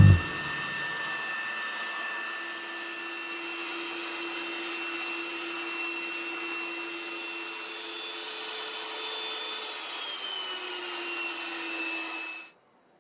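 Electric kitchen mixer motor running steadily with a whirring hum and a high whine; the pitch sags slightly near the end before it cuts off suddenly.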